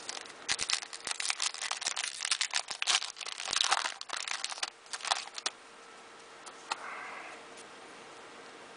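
Foil wrapper of a 2013-14 Panini NBA Hoops trading-card pack being torn open and crinkled by hand. The crinkling is dense and loud for about five seconds, then stops as the cards come out.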